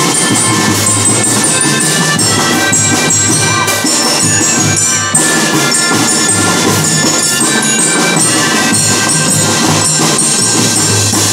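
A drum band playing a tune without a break: massed pianikas (melodicas) and marching bells carry the melody over snare drums.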